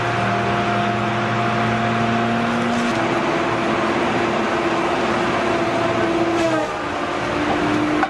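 A heavy machine's engine running under load, a steady drone with a held whine whose pitch shifts a few times and slides down about six and a half seconds in.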